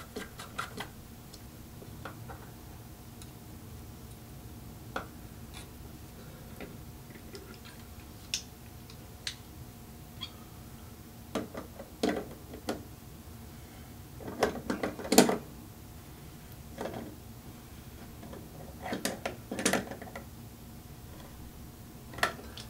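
Light clicks, taps and clatter of faucet parts being handled and fitted as the trim piece goes back on, scattered at first and then in three short clusters, the sharpest knock about two-thirds of the way through. A faint steady hum runs underneath.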